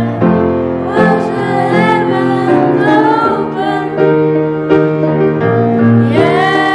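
Young girls singing with grand piano accompaniment. The voices drop out around the middle, leaving the piano playing alone, and come back near the end, sliding up onto a long held note.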